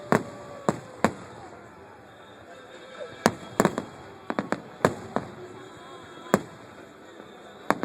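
Fireworks going off: about a dozen sharp bangs at irregular intervals, some in quick succession, with faint voices in the background.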